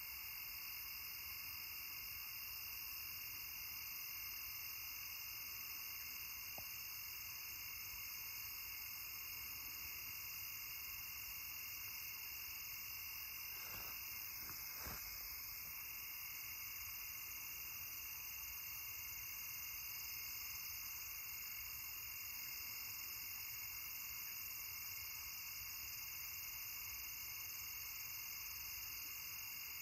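Steady night chorus of crickets and other insects, several unbroken high-pitched trilling bands at different pitches. Two faint knocks about halfway through.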